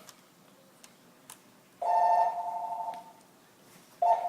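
A phone ringing electronically: two rings of about a second each, roughly two seconds apart, with a couple of faint clicks before the first.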